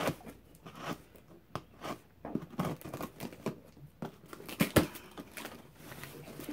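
Scissors cutting into a cardboard box, with irregular snips, scrapes and paper crinkling; one sharp click a little under five seconds in is the loudest.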